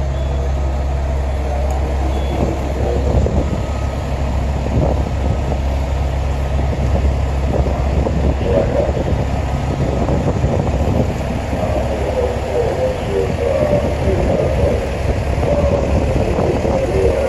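Fire truck's diesel engine running steadily, a low, even hum that holds one pitch.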